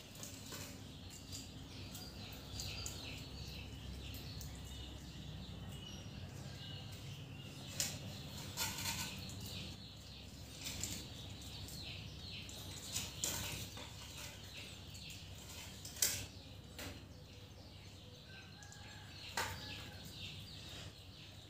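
Kittens eating and drinking from glass cups on a bare tiled floor: scattered sharp clicks and taps, the loudest about eight, thirteen, sixteen and nineteen seconds in, over a steady low hum, with faint high chirps.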